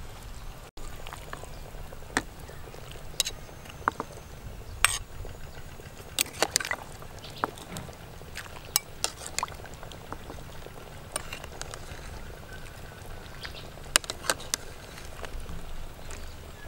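Black chicken soup simmering in a metal pot, with scattered sharp clicks and pops, while broth is ladled from the pot into a bowl.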